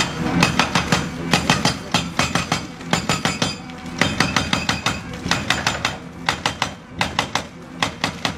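Excavator-mounted hydraulic breaker hammering a reinforced-concrete column, sharp ringing blows in quick bursts with short pauses between them.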